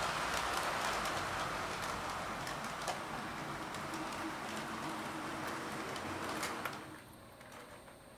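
OO-gauge model locomotive, an Accurascale Deltic, running on the layout's track into the station: a steady rumble of wheels on rail with scattered small clicks. It stops suddenly about seven seconds in.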